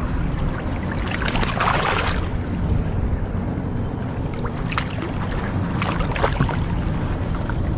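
Steady wind rumble on the microphone, with water splashing as a hooked sheepshead thrashes at the surface and is grabbed by hand. The loudest splash comes about one and a half seconds in, and a few short sharp splashes follow later.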